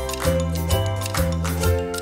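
Background music with a steady beat of about two beats a second over a bass line.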